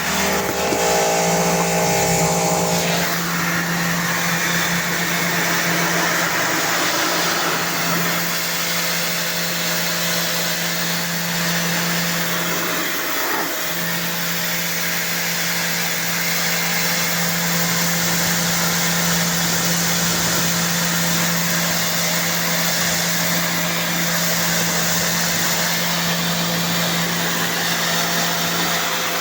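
Pressure washer running steadily: a constant motor hum under a wide spray hiss, with a brief dip about halfway through.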